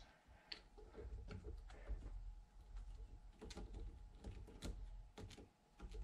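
Faint metal clicks and light scraping of a hand tap and tap wrench being worked in a freshly tapped aluminium knob held in a steel vise, with scattered small ticks.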